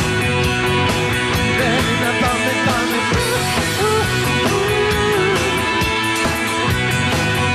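Rock band playing live in an instrumental passage: an electric guitar melody that bends in pitch over a steady drum beat and bass.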